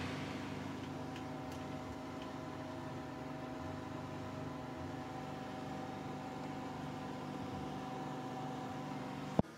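Steady machine hum with a few held tones, like a fan running, from the open electric oven, ending in a single sharp clack as the oven door is shut near the end.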